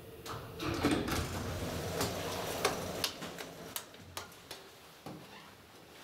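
KONE lift arriving at the landing: a steady hum stops about a second in, then a run of clicks and knocks as the manual swing hall door is unlatched and pulled open.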